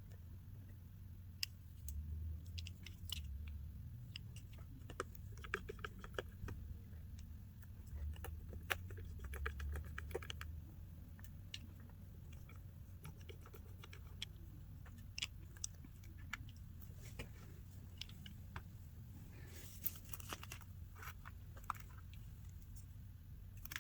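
Faint, irregular small clicks and ticks of a precision screwdriver working at the tiny screws of an iPhone 8's home-button metal plate, with a few quick clusters of clicks and low handling bumps.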